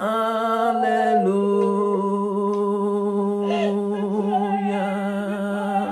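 A single voice singing one long held 'oh', dropping a step in pitch about a second in, leading into 'hallelujah'.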